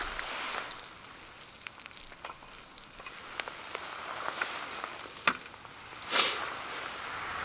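Small wood fire crackling and hissing, with scattered sharp pops. The loudest pops come about five seconds in and just after six seconds.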